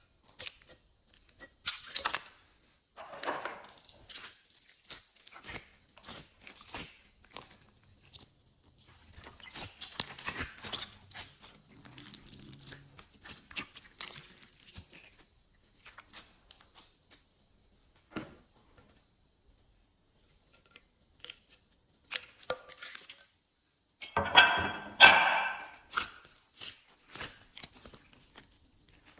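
Glossy slime being squished and stretched by hand, giving irregular sticky clicks, crackles and tearing sounds with short quiet gaps, and a louder run of crackling near the end.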